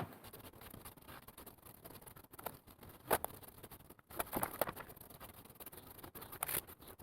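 Oil-soaked cat litter being scraped up and gathered into a container: faint, irregular gritty scratching with small rattling clicks of the granules, a few louder scrapes about two and three seconds in and again past four seconds.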